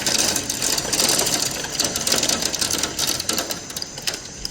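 Hailstones pelting a hard surface: a dense, rapid clatter of ticks that eases somewhat near the end.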